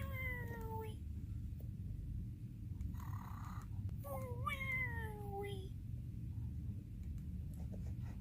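Cartoon snoring sound effect: two drawn-out whistling tones that fall in pitch, about four seconds apart, with a short hiss between them, over a steady low hum.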